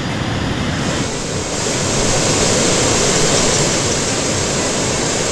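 A torrent of floodwater rushing, as from a dam spillway in heavy discharge: a loud, steady rush that grows fuller about a second in.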